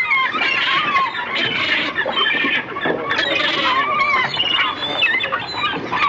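A flock of gulls calling: many short, harsh calls overlapping one another, bending up and down in pitch.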